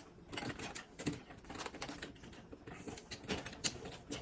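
Irregular light clicks, taps and scrapes of hand work on the dishwasher as it is fastened back into place with its mounting screws.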